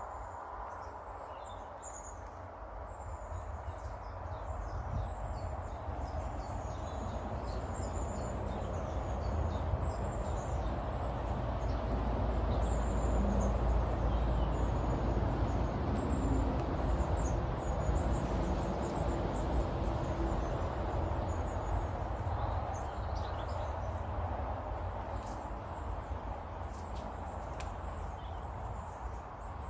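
Small garden birds chirping, many short high calls again and again, over a steady low rumble that grows louder through the middle and eases off toward the end.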